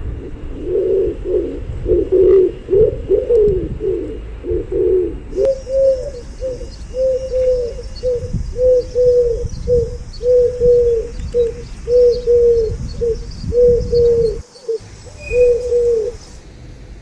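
Pigeons cooing over a low rumble: bending, overlapping coos at first, then, about five seconds in, a steady run of short coos at roughly two a second with a faint high hiss behind them.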